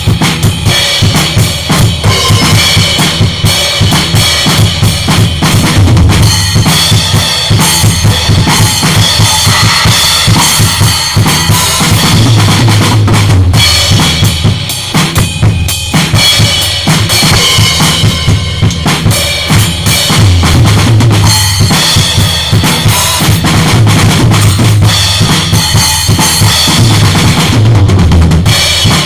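Maple-shell acoustic drum kit played in a continuous busy groove: bass drum, snare and cymbals.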